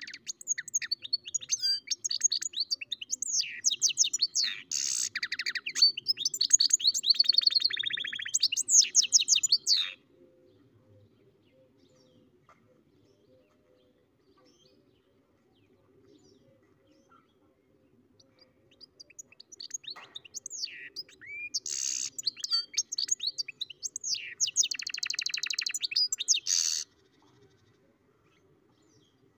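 Goldfinch × canary hybrid (goldfinch mule) singing: two long phrases of fast twittering notes and trills, the first about ten seconds long. The second follows after a pause of about ten seconds.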